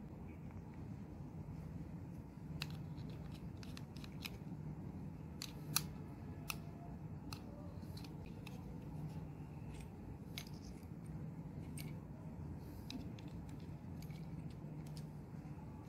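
Scattered small clicks and taps of a magnetic contactor's plastic housing and metal contact parts being handled and fitted by hand, over a steady low hum.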